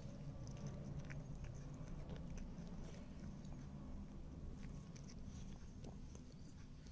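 A tabby cat licking and chewing at crumbs on a mat: soft mouth smacks and small clicks scattered throughout, over a low steady rumble.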